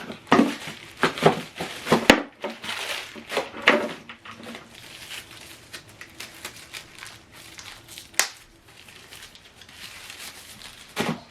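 Packaging crinkling and rustling as unboxed accessories are handled: a quick run of rustles over the first four seconds, then quieter handling with a single sharp click about eight seconds in and a last rustle near the end.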